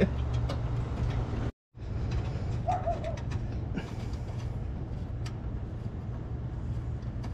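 Steady low hum with a few faint clicks, cut to silence for a moment about one and a half seconds in, and a brief higher call or squeak about three seconds in.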